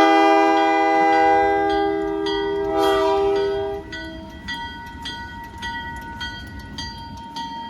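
Buffalo Southern locomotive 4212's multi-chime air horn sounding one long chord that cuts off about four seconds in, over the low rumble of the approaching train. After the horn stops, a grade-crossing bell dings about twice a second.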